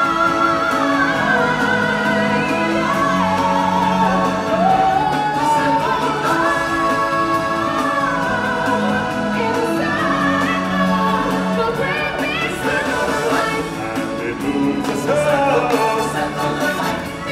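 Live stage-show music: singing with long held and gliding notes over a full musical backing with steady bass notes.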